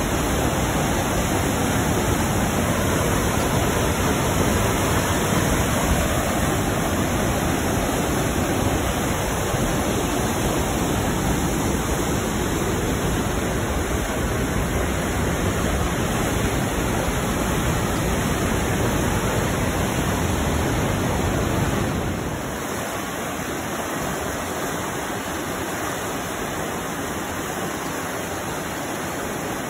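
Steady rushing roar of a waterfall and whitewater pouring through a narrow limestone gorge. About three-quarters of the way through, the deep part of the roar drops away and the rush turns lighter and a little quieter.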